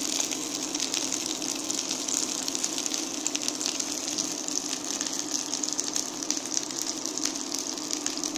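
Chicken wings frying in hot oil in a frying pan: a steady sizzle thick with small pops and crackles.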